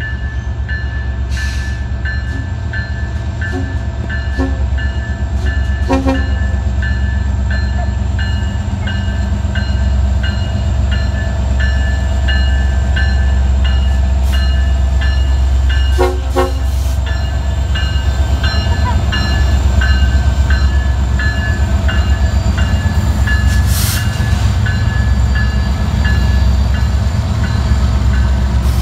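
Union Pacific diesel freight locomotives rumbling steadily as the train passes close by, growing a little louder as they arrive, with a bell ringing in even strokes throughout and a brief horn sound about sixteen seconds in.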